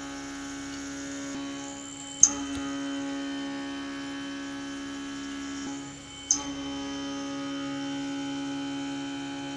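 Solid carbide end mill milling steel with chatter: a steady hum of many ringing tones. Two sharp clicks come about four seconds apart, each after a short rising whine. The 16 mm cutter is too strong for the machine, so the cut chatters instead of running reliably.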